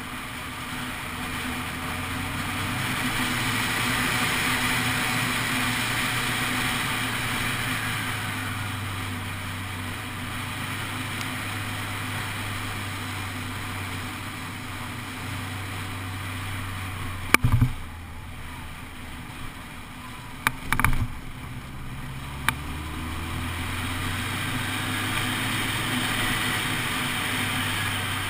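Honda CBF 600 SA motorcycle's inline-four engine running under way with wind rush. The revs rise near the start, ease off through the middle and climb again near the end. A few sharp knocks come a little past the middle.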